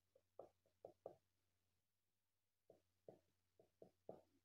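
Faint short squeaks of a marker writing on a whiteboard, in two runs of quick strokes with a pause of about a second and a half between them.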